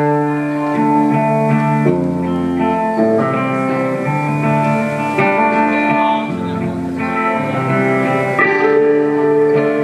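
Live rock band playing a slow instrumental intro led by electric guitar, held chords changing every second or two.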